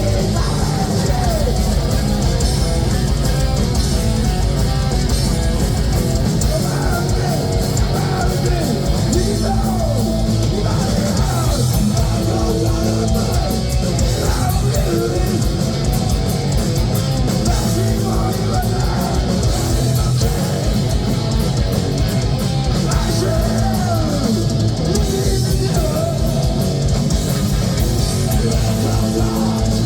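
Heavy metal band playing live: distorted electric guitars with sliding lead lines over bass and fast, dense drumming, at a loud, steady level.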